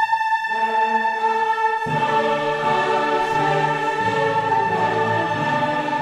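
Background orchestral music with a choir: a long held high note, with lower voices and instruments coming in about two seconds in.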